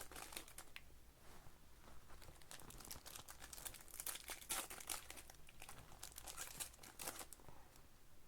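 Plastic and foil packaging crinkling and tearing in short, irregular crackles as baseball card packs are ripped open.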